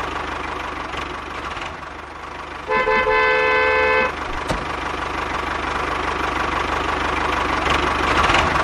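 Tractor engine running steadily, with a horn sounding once for about a second and a half, about three seconds in.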